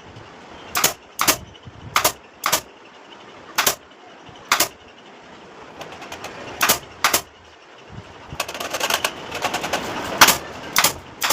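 Sharp, separate strikes on wood in a woodworking job, landing irregularly about half a second to a second apart, with a quicker run of small taps and clicks a little after eight seconds in.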